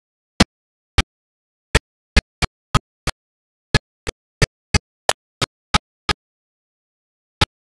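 A series of sharp, very short clicks at irregular intervals, about two to three a second, with dead silence between them and a pause of over a second near the end.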